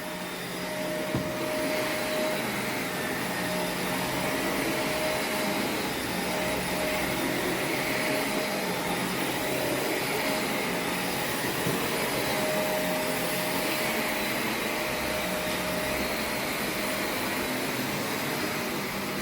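Shark NV501 upright vacuum cleaner running steadily with a constant whine while vacuuming carpet.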